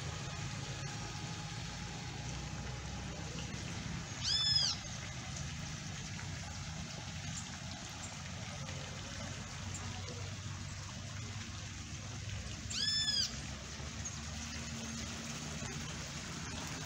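Water from a plaza fountain's small jets splashing steadily into its basin, with a short high-pitched animal call, rising then falling in pitch, twice: about four seconds in and again about thirteen seconds in.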